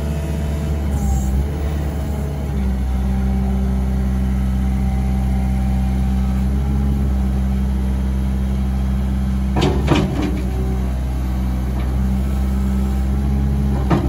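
Case SR175 skid steer's diesel engine running steadily, its pitch stepping up about two and a half seconds in as it is throttled up while the loader lifts the bucket. A couple of sharp knocks come close together about ten seconds in, and another near the end.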